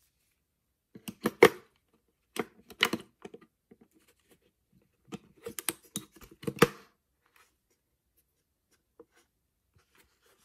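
An AA battery being clicked into the plastic battery holder of a quartz wall-clock movement: three short bursts of clicks and plastic rattles. The sharpest come about a second and a half in and again near seven seconds.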